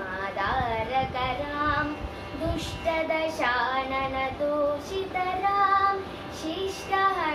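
A girl singing a devotional song to Rama, her voice gliding between long held notes.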